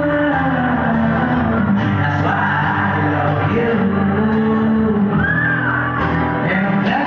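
Amplified live concert music with a male singer, heard through a phone's microphone in the audience of a large hall.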